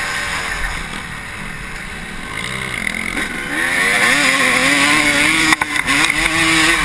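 Honda CR250 two-stroke motocross engine heard from the rider's helmet, with wind rushing over the microphone. The engine runs lower and quieter for the first few seconds, then the revs climb and hold high, with a brief break in the sound about five and a half seconds in.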